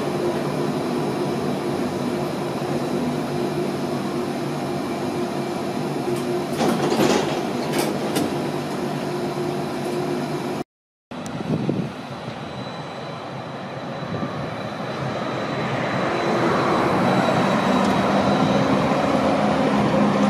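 Low-floor tram running, heard from inside the passenger saloon: a steady hum of motor tones over rolling noise, with a few brief sharp noises about seven seconds in. After a short break, a tram running on street track outdoors, its noise growing louder as it comes near.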